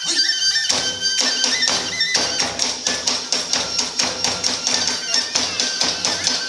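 Iwami kagura accompaniment music: a high bamboo flute melody played over drums and hand cymbals. The drums and cymbals come in about a second in and then keep up a fast, even beat.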